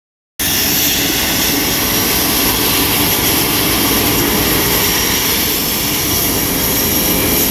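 Eurocopter EC135 air-ambulance helicopter running on the ground before take-off: a steady, loud turbine whine over the rotor's whoosh. The sound starts abruptly about half a second in and holds even.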